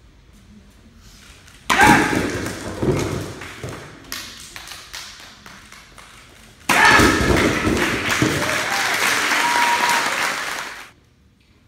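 Two stacks of concrete slabs broken by hand strikes. The first crash comes about two seconds in, with pieces knocking down onto the floor. The second crash comes a few seconds later and is followed at once by audience applause and cheering, which cuts off abruptly near the end.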